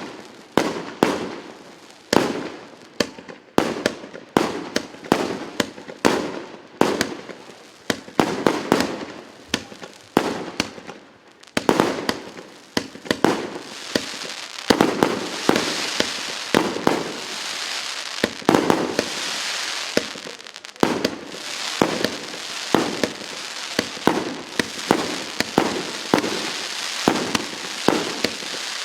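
A 150-shot 1.2-inch consumer fireworks cake firing shot after shot, about two a second. About halfway through, a steady high crackling from the crackling-star effects joins the shots and runs under them.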